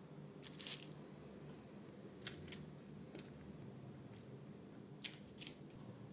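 A few faint, short crisp clicks and crunches over a low steady hum: one brief crunch early, then two pairs of sharp clicks.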